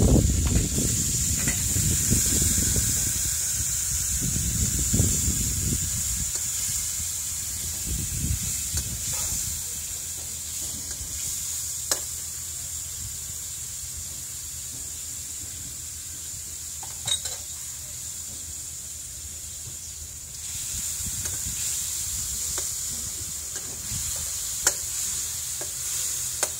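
Chicken and basil stir-frying in a wok: a steady high sizzle, with a metal ladle stirring and a few sharp clinks of the ladle against the wok. A low rumble fades out over the first few seconds.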